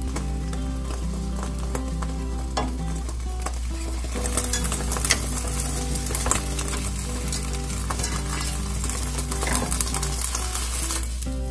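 A thin egg sheet sizzling in a nonstick wok, with wooden chopsticks scraping and clicking against the pan as it is lifted and turned. The clicks come more often from about four seconds in.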